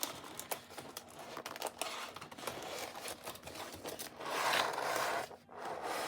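Plastic packaging crinkling and rustling as it is handled and pulled off a small die-cast model airplane, with scattered small clicks and a louder stretch of rustling about four seconds in.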